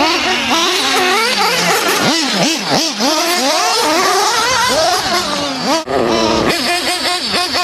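Several radio-control off-road cars racing past together, their motors revving up and down in quick, overlapping rising and falling whines, with a brief lull about six seconds in.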